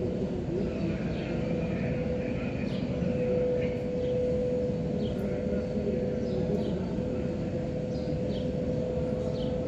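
Steady mechanical hum and rumble carrying a constant mid-pitched tone, with a scatter of short, high, downward chirps over it.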